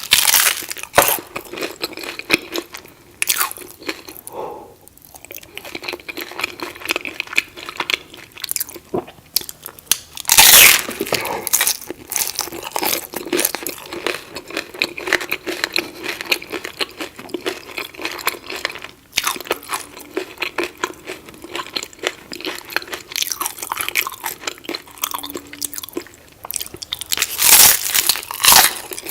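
Crunchy taco shell being bitten and chewed: a dense run of crisp crackling crunches, loudest about ten seconds in and again near the end.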